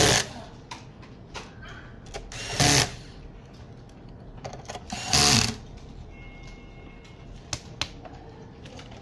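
Handheld electric screwdriver running in three short bursts, about two and a half seconds apart, on the screws of a car stereo head unit's aluminium back panel, with small clicks and taps of handling the unit between them.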